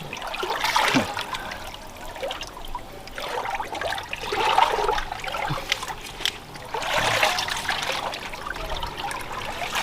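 Shallow water sloshing and splashing as people wade through it, in uneven swells of a few seconds each.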